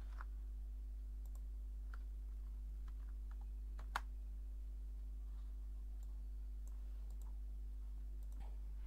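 Faint clicks of a computer mouse and keyboard as a URL is copied, a new browser tab opened and the address loaded, with one sharper click about four seconds in. A steady low electrical hum runs underneath.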